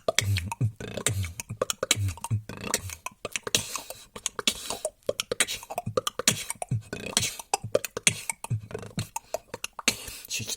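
A person beatboxing: rapid mouth clicks and snare-like hits, with deep kick-drum-like thumps through the first few seconds.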